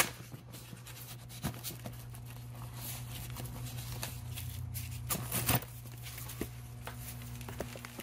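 Rustling and scraping as a hand rummages in a fabric tool bag's pouch and handles a folded sheet of emery cloth, a few scattered rustles with the loudest about five seconds in, over a steady low hum.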